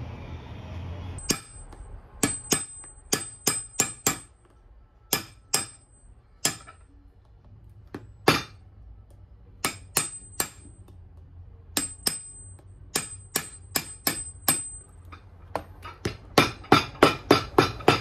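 A cobbler's hammer striking a Vibram mini-lug rubber sole on a boot held upside down on a metal last, sharp irregular blows, some with a thin metallic ring. The blows begin about a second in and end in a quick run of about seven near the end.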